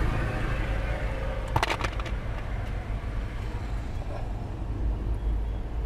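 A wire stripper clicking shut on a wire four or so times in quick succession, about a second and a half in, over a steady low rumble.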